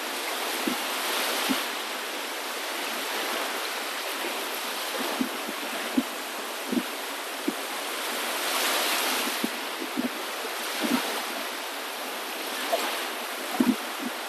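Water washing in slow swells that rise and fall a few times, with many short plops and gurgles scattered through the steady hiss.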